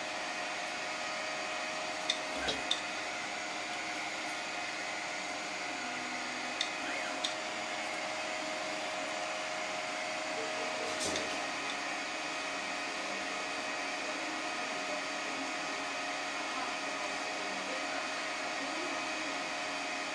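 Multi-colour 3D printer running a print: a steady mechanical whine of stepper motors and cooling fans, with a few short clicks about two, seven and eleven seconds in.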